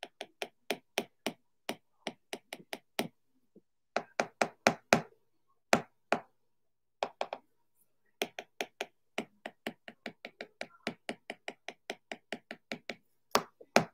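Second-generation Apple Pencil's hard plastic tip tapping on an iPad Pro's glass screen: a long run of sharp clicks, several a second, in bursts separated by short pauses.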